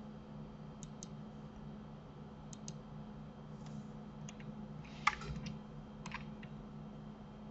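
Faint clicks of a computer mouse and keyboard, scattered and some in quick pairs, with a short cluster about five seconds in, over a low steady hum.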